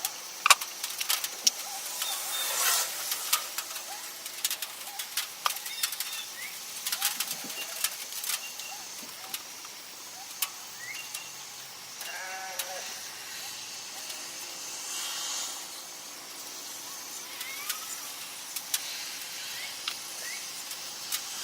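Light handling noise of woodworking: scattered small clicks and taps as glue is applied and cedar box pieces are handled and set in place, with a short squeak about twelve seconds in.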